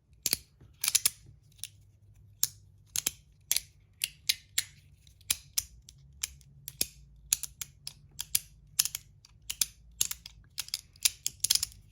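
Flat Verk magnetic fidget clicking as its plates are slid and snapped together by the magnets during tricks: a run of sharp, irregular clicks, several a second, some in quick pairs.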